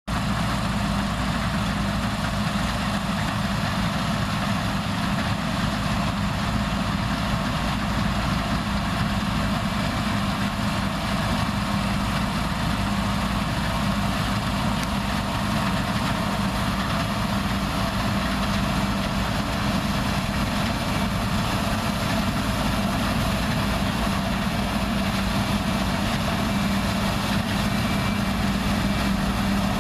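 New Holland TC54 combine harvester running steadily while cutting and threshing: an even diesel engine drone with a constant hum and no change in pace.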